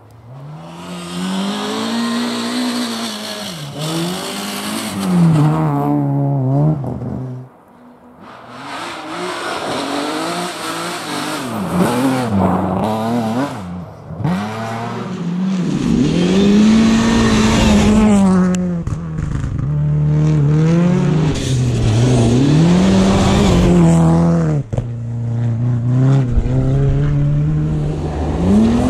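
Rally car engines revving hard on a snow stage, the pitch climbing and dropping again and again through gear changes and lifts, with several cars passing in turn.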